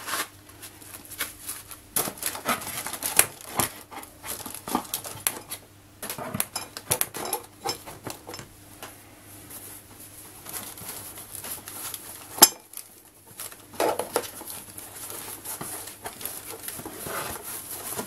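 Handling noise as items are packed into a cardboard box: a knife put into its nylon sheath, then a foam sheet laid over the contents and pressed down, with rustling, scraping and scattered taps and clicks. One sharp click stands out about two-thirds of the way in.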